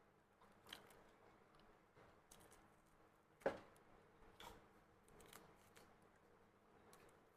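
Someone chewing dried squid: scattered soft crunches and clicks, with one sharp, louder snap about three and a half seconds in.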